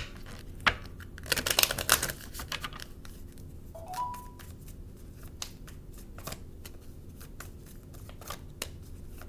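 Tarot cards being handled and shuffled on a table. A flurry of card rustling and clicks comes about a second in, then sparse single clicks follow. A brief steady tone sounds about four seconds in.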